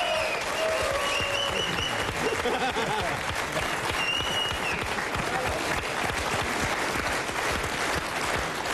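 Studio audience applauding steadily, with a couple of brief high tones over it.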